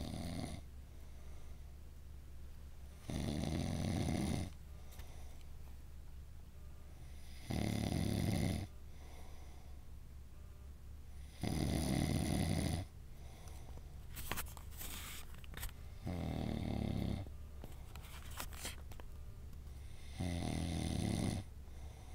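A sleeping man snoring heavily and regularly: five full snores about every four seconds, each lasting about a second, with the tail of one more as it begins.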